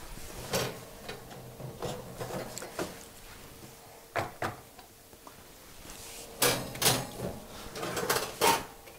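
Kitchen handling noises as a silicone baking mat is handled on the worktop and slid onto an oven's wire rack: scattered knocks and clatters, with a denser run of louder clunks in the last few seconds.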